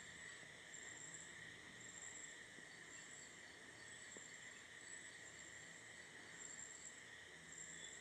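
Near silence with faint, steady insect chirping, a short high chirp repeating about once a second.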